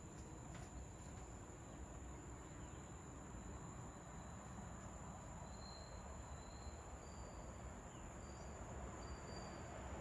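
Faint evening insect chorus of crickets, a steady high-pitched trill, over a low hum of distant background noise. Several short high notes sound in the second half.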